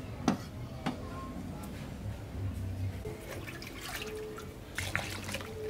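Two sharp chops of a meat cleaver on a wooden chopping board in the first second, then water sloshing and splashing as it is scooped with a plastic dipper from a large glazed clay water jar.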